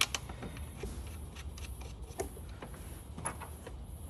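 Small metal clicks and taps, irregular and a second or so apart, as hex bolts are handled and started by hand into a throttle body. The sharpest click comes right at the start.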